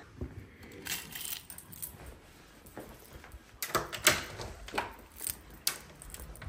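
A bunch of keys on a car key fob jingling in a hand, with a string of sharp clicks and clinks, loudest about four seconds in, as a front door is unlocked and opened.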